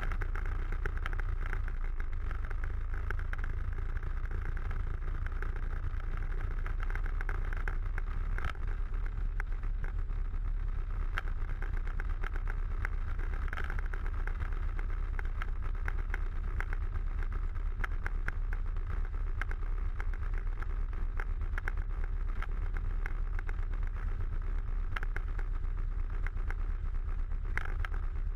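Small aerobatic plane's piston engine running steadily as it taxis on the ground, with a strong low rumble and scattered light ticks.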